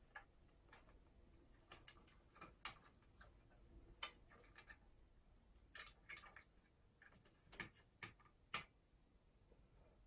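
Faint, irregular clicks and taps from two Amazon parrots moving about on a wooden ladder perch with plastic toys, the strongest few coming about eight seconds in.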